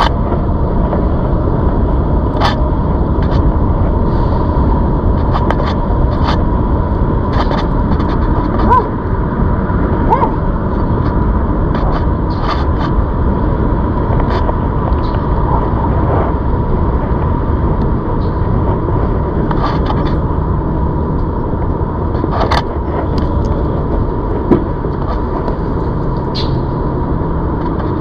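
Steady wind and rolling rumble from a ZOOZ electric bike being ridden, under a thin steady whine, with scattered light clicks and rattles.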